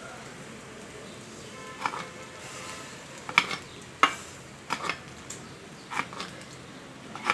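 Metal baking dish and aluminium foil being handled as the covered dish goes back into the oven: several sharp clinks and knocks, a second or so apart, over a steady hiss.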